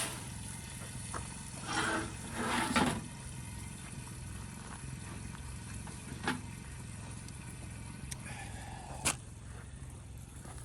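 Camp cooking over a fire: two brief scraping noises about two seconds in, then a couple of sharp clicks, over a steady low hum.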